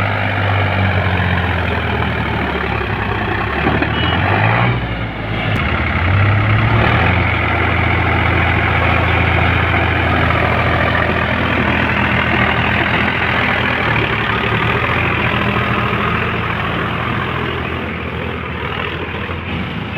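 Diesel engine of a JCB 3DX backhoe loader running while working. Its note drops about four seconds in, picks up again around six seconds, then holds steady.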